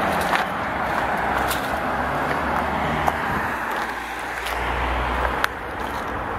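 Road traffic noise: a steady wash of passing-vehicle sound with a low rumble that eases off near the end, with a few faint clicks.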